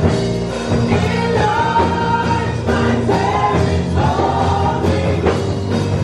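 Gospel praise team of several women singing together into microphones with band accompaniment, holding long notes.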